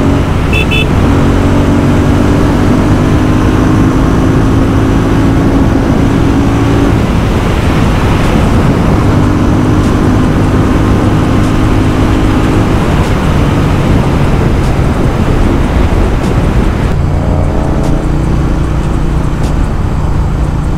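Royal Enfield Continental GT 650's 648 cc parallel-twin engine running at a steady cruise through an aftermarket Powerage exhaust, mixed with loud wind rush. The wind rush eases in the last few seconds as the bike slows.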